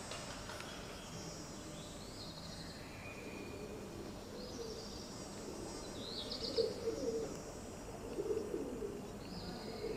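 Birds: a few short high chirps, then low cooing calls from about six seconds in, faint over a steady street background.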